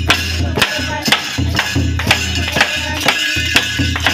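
Folk dance music played live on percussion: a long bamboo clapper clacks sharply about twice a second over a low, pulsing drumbeat.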